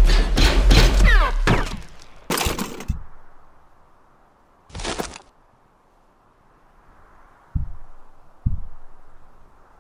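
Sound-effect battle: a rapid run of blaster shots over a deep rumble, dying away within the first three seconds. A short sharp hiss about five seconds in, then two dull thuds near the end.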